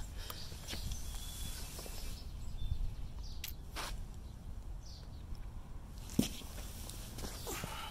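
Quiet outdoor ambience with a low steady rumble, and a few scattered footsteps and light knocks on a brick-paver patio.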